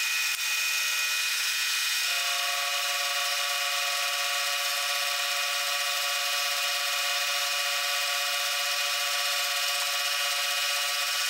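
Milling machine running an end mill through a light final finishing pass (about 0.2 mm) on a V-groove in a metal block: a steady whine with several held tones. About two seconds in, a lower set of tones joins and holds.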